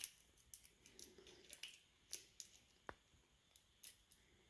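Faint, irregular small metallic clicks and scrapes of a lock pick working the pin stack of a cheap padlock against a tension wrench.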